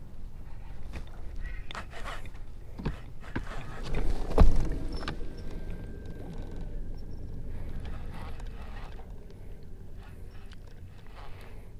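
Clicks, knocks and scrapes of a baitcasting rod and reel being worked from a boat deck, over a low rumble of wind on the microphone, with one loud sharp thump about four and a half seconds in.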